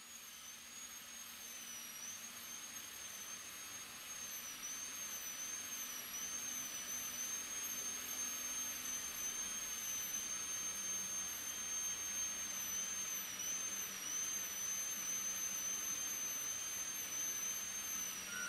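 High-speed air-turbine dental handpiece running with its bur cutting a plastic typodont tooth during occlusal reduction for a crown: a steady high-pitched whine that dips slightly in pitch now and then as the bur bites.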